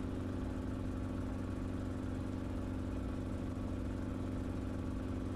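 Enstrom helicopter in flight: the steady drone of its engine and rotors, an even hum that holds one pitch throughout.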